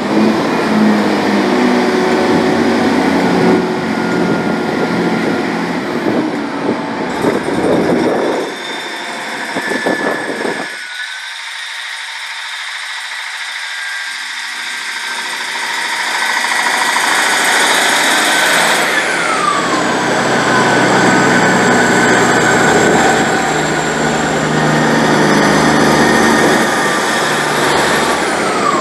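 GWR Class 158 diesel multiple unit moving past at the platform, its underfloor diesel engines running with a steady drone. The low engine note drops away about ten seconds in, then builds and grows louder again as the train moves on.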